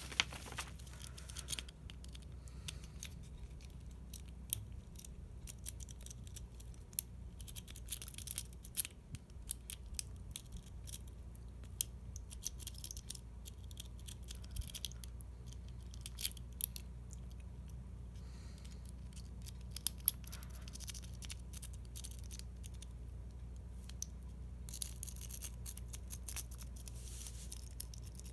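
A homemade paper-clip rake pick scraping and clicking over the pins inside a Master Lock 141D padlock, with a tension wrench in the keyway. It makes quick, irregular metallic ticks and scratches that come in short flurries, over a steady low hum.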